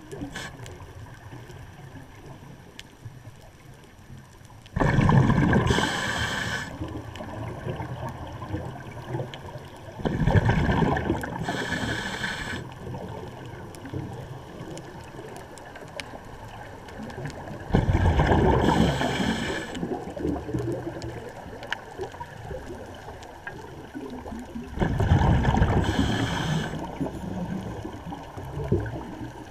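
Scuba diver's breathing heard through an underwater camera: the regulator's exhaled bubbles rush out loudly for about two seconds at a time, four times, roughly seven seconds apart, with a low steady murmur of water between breaths.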